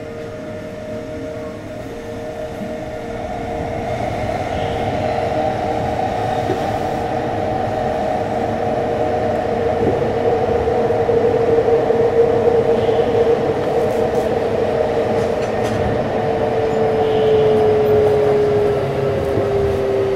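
Kintetsu 3220 series electric train running on the subway, heard inside motor car Mo 3821: traction motor and Hitachi IGBT VVVF inverter sound as a steady tone over wheel and track noise. It grows louder over the first few seconds, and the tone drops in pitch near the end.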